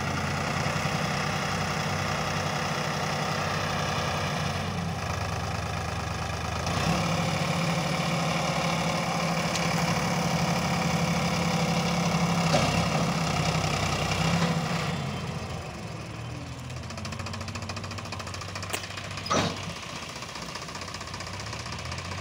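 Sonalika DI 35 tractor's three-cylinder diesel engine running steadily while its hydraulics tip the loaded trailer. The engine runs louder from about seven seconds in and drops back to a quieter idle about halfway through, with a sharp knock near the end.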